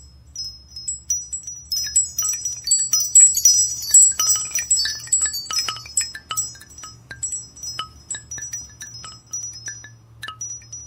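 Wind-chime ringtone: many quick, high, tinkling chime strikes in an irregular scatter. They are sparse at first, thickest from about two seconds in to the middle, then thin out toward the end.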